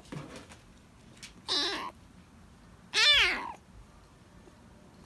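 A kitten meowing twice, a short faint call and then a louder one that falls in pitch. It is crying from hunger, its voice hoarse from crying.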